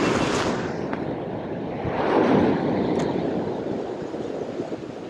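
Sea surging and washing over a rock ledge, swelling about two seconds in and then easing off, with wind on the microphone.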